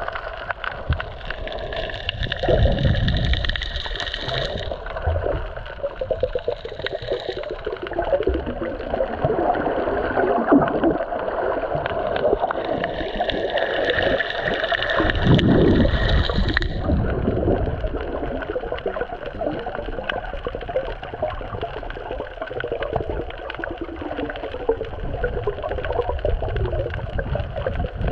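Water gurgling and sloshing close to the microphone, a continuous churning noise that swells around 2–4 s in and again around 13–17 s in.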